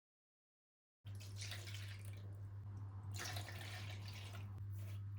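Water running briefly from a tap and splashing, in two or three short spells, over a steady low hum.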